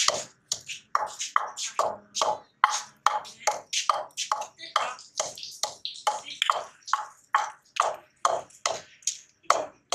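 A long wooden pestle pounding green herbs in a terracotta bowl to make chutney. The strokes are steady and quick, about three a second, each a dull knock of wood on clay.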